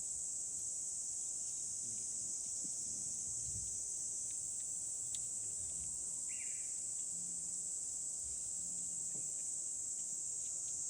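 Steady high-pitched chorus of insects, unbroken, with a few faint ticks and one short chirp about six seconds in.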